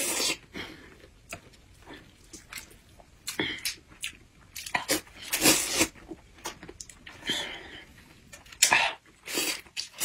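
Noodles slurped from a bowl with chopsticks: a string of short, noisy slurps with quiet gaps between.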